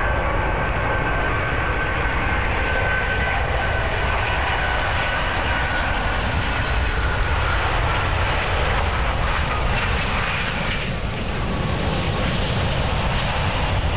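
Twin-engine jet airliner on final approach and landing: a steady jet engine whine with high tones that slowly fall in pitch, over a constant low rumble. The whine fades about eleven seconds in as the jet touches down on the wet runway.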